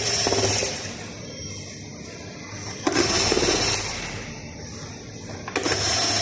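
Small electric screwdriver whirring in three short bursts about three seconds apart, each starting with a click, driving screws out of a robot vacuum's housing.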